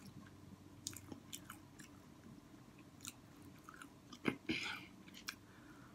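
Close-up chewing of hot Cheeto-fried king crab leg: soft wet mouth clicks and smacks, with one louder smack about four seconds in.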